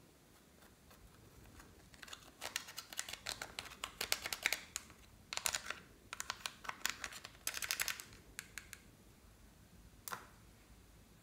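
Small spatula scraping and digging pressed eyeshadow out of a palette's pans: rapid scratchy clicks in bursts for several seconds, then a single click near the end.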